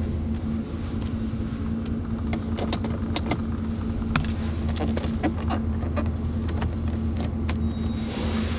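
A vehicle's engine runs with a steady low hum. Scattered light clicks and knocks come over it, and a faint high whine starts near the end.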